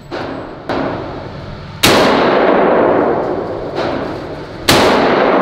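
Double-barrel pump-action shotgun firing in an indoor range: two loud blasts about three seconds apart, each followed by a long echo. Two weaker bangs come just before them.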